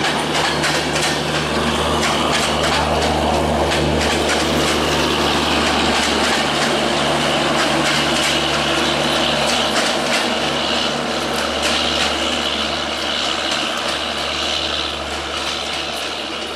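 Sundarban Express, a Bangladesh Railway intercity passenger train, rolling past: a steady rumble of coaches with rapid clacking of wheels over the rail joints and a steady low hum. It eases off a little near the end as the last coaches go by.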